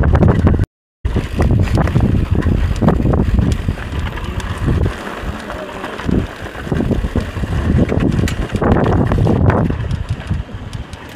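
Wind buffeting the microphone over the clatter and rattle of a mountain bike rolling down a rough trail. There is a short break to silence about a second in.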